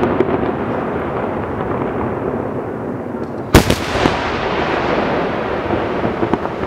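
Aerial firework shells at a display, heard over a steady noisy rumble. A single loud, sharp shell burst comes about three and a half seconds in, followed by a few smaller reports and scattered pops.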